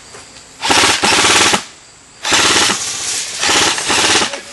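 Airsoft rifle firing full-auto in three bursts of about a second each, each a rapid run of clacking shots.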